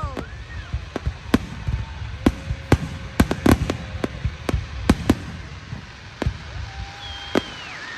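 Fireworks display: a string of sharp bangs and pops at irregular intervals, two or three a second at times, over a low rumble.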